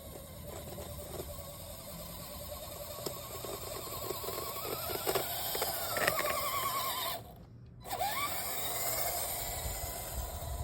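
Axial SCX10 RC crawler's electric motor and gear train whining as it drives, the pitch wavering and rising with throttle, with scattered clicks from the drivetrain. The sound drops out briefly about seven seconds in, then the whine returns.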